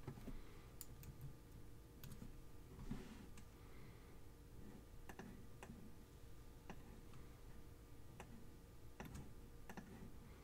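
Faint computer mouse clicks, scattered irregularly, over a low steady hum, with one soft brief noise about three seconds in.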